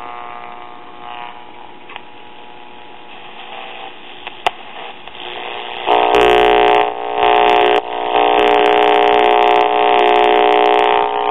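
AM pocket transistor radio being tuned across the band: faint static with a couple of clicks, then about six seconds in a loud steady buzzing hum comes in as it picks up the record player's built-in AM transmitter. The hum on the carrier comes from a bad filter capacitor in the player.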